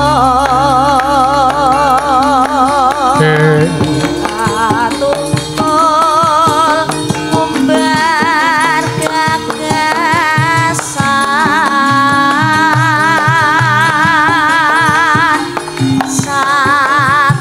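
A sinden, a female Javanese vocalist, singing long held notes with wide, wavering vibrato over gamelan accompaniment.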